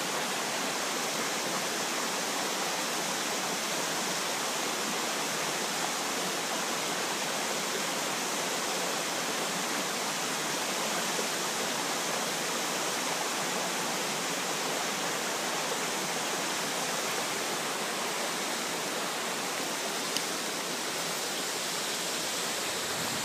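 Steady rushing of a rocky mountain stream, water cascading over boulders.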